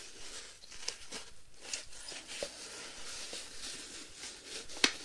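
Soft handling noises: scattered light taps and clicks over a faint rustling hiss, with one sharp click near the end.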